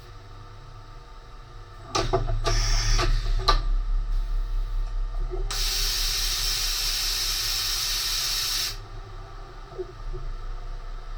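Hum of a CNC milling machine, with clicks and a rush of movement about two seconds in. Then a steady compressed-air blast hisses for about three seconds and cuts off, during automatic measurement of an end mill on a BLUM tool setter.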